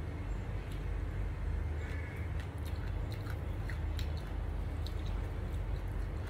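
Chewing with the mouth closed, with scattered small clicks from fingers picking omelette and rice off a plate, over a steady low hum.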